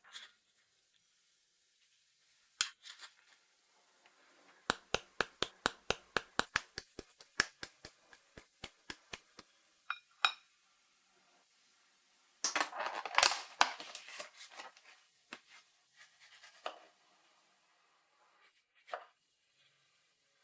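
Kitchen handling sounds. A run of about twenty sharp taps or clicks comes at roughly four a second and fades, followed by a couple of seconds of scraping and rustling and a few scattered clicks.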